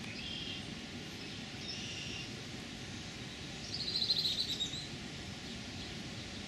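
Small birds chirping, with a louder fast trill about four seconds in, over a steady low background rush.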